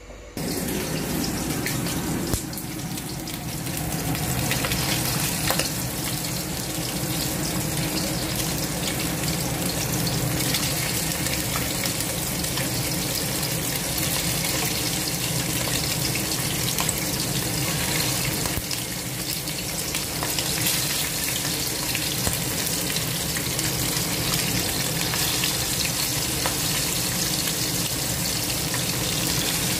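Chunks of stingray frying in hot oil in a pan: a steady sizzle that starts suddenly just after the beginning.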